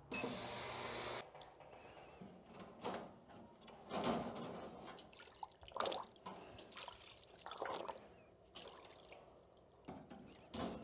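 An ultrasonic parts cleaner runs with a loud, steady hiss for about a second and then stops. After that, cleaning liquid sloshes and drips in several separate splashes as a wire basket of brake caliper and master cylinder parts is lifted out of the tank.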